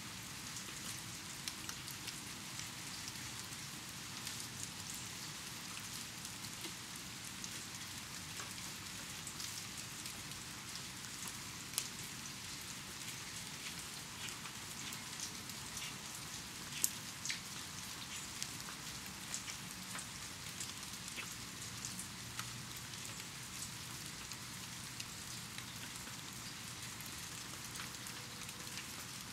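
Steady rain: a dense patter of drops, with a few louder single drops standing out above it, the loudest about twelve and seventeen seconds in.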